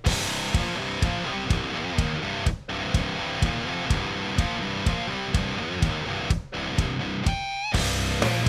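Background music: a guitar-led track with a steady drum beat, about two beats a second, briefly dropping out twice.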